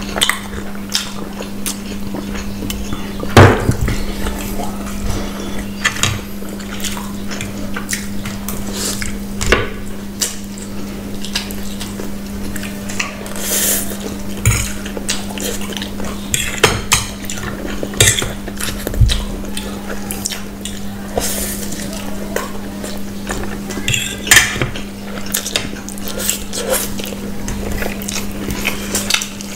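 Metal forks clinking and scraping on plates, with the wet chewing and slurping of people eating noodles and fried food. A sharp clink about three and a half seconds in is the loudest sound, and a steady low hum runs underneath.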